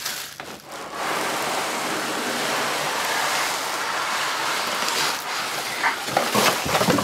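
Cardboard packing scraping against the inside of a cardboard box, with plastic wrapping rustling, as a boxed upright vacuum cleaner is slid out. A steady scraping rush starts about a second in and turns more uneven near the end.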